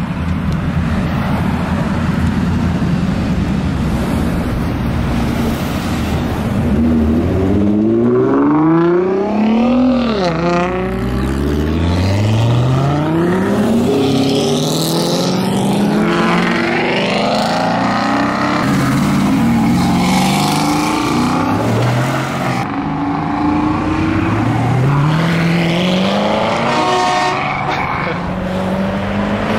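Car engines idling steadily, then, from about seven seconds in, a string of performance cars pulling away past one after another, each engine revving up through the gears in repeated rising sweeps.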